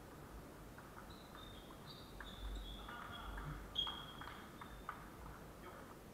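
Table tennis rally: the ball clicks off the bats and table at irregular intervals, with sneakers squeaking on the wooden gym floor. The loudest squeak comes nearly four seconds in.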